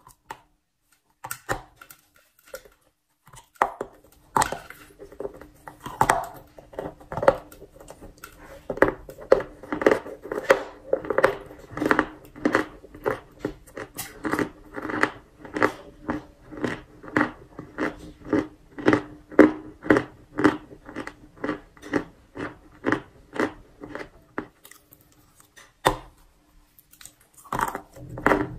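Close-miked crunching and chewing of a crumbly chunk of edible chalk: a first bite about a second in, then steady crunches about two a second. There is a short pause near the end before the chewing starts again, over a faint steady hum.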